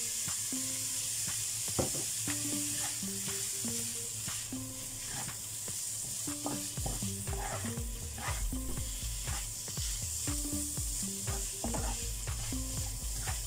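A spatula stirring and scraping dry, shredded ingredients around a stainless steel wok. The food sizzles steadily and the spatula makes frequent clicks against the pan. A faint melody of short repeating notes plays underneath.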